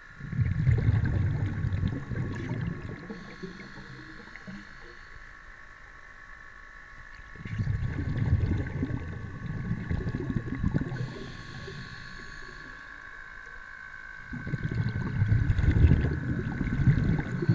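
Water rushing and rumbling against an underwater camera as it is moved along a brook bed, in three surges of low noise, over a steady high whine.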